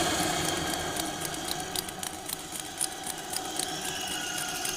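A steady hissing ambience with a few faint held tones and many small scattered clicks and ticks.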